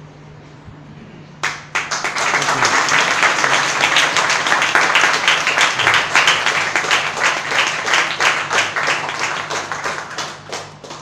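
Congregation applauding, starting suddenly about a second and a half in and fading out near the end.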